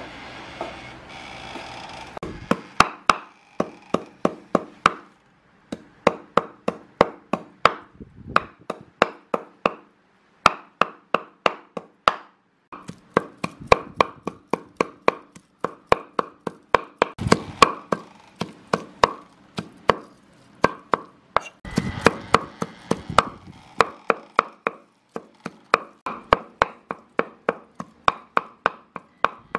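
Cleaver chopping raw meat on a wooden chopping board: sharp, even strokes about three a second, with a few short pauses between runs.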